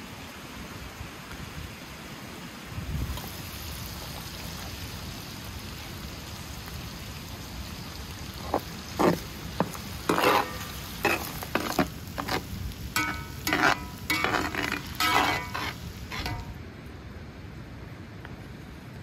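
Minced meat and chopped peppers sizzling in a large metal pan, with a metal ladle stirring and scraping against the pan. Past the middle the ladle clanks sharply and repeatedly against the metal for several seconds, then the clanking stops.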